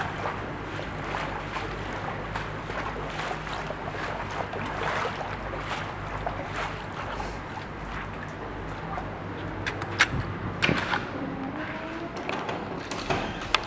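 Tidal seawater flowing into a flooded parking garage: a steady rushing wash of water, over a low steady hum, with a few sharp clicks about ten seconds in.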